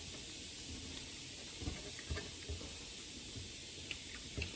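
Steady faint hiss with a few soft, low mouth sounds of someone eating and chewing.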